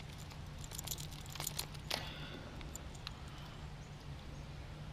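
Faint scattered clicks and crinkling rustles of handling, over a low steady hum.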